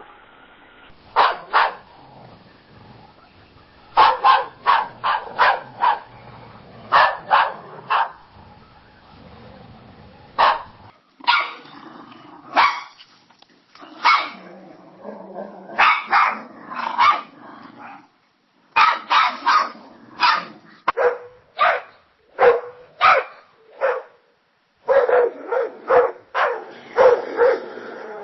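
Dogs barking: short, loud barks, some single and some in quick runs of three to five. Several separate recordings follow one another, so the dogs and the background change every ten seconds or so.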